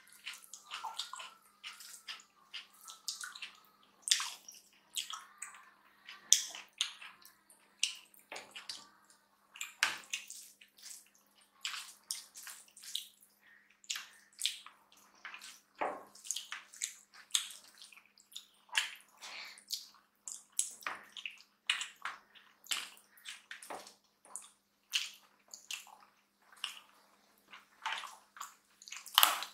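Wet, irregular smacking and squishing of eating by hand: fingers mashing rice into dal and curry, and open-mouthed chewing, with sharp wet clicks several times a second.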